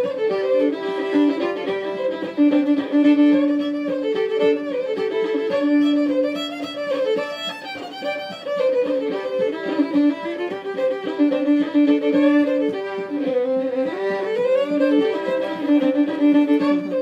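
Two fiddles playing an Irish traditional tune together, with a note that slides down and back up about three-quarters of the way through.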